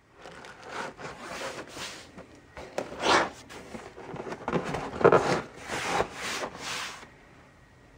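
Cardboard Priority Mail box being handled and its flaps folded in, the cardboard rubbing and scraping in a run of strokes, loudest about three and five seconds in, then stopping about a second before the end.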